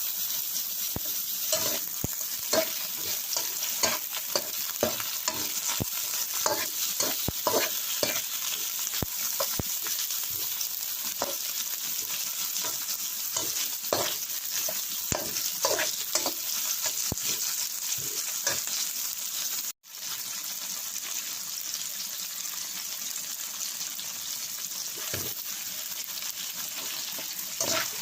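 Food sizzling in hot oil in a pan while it is stirred, with frequent short knocks and scrapes of a spatula against the pan. The sound cuts out for an instant about two-thirds of the way through, then the sizzling and stirring go on.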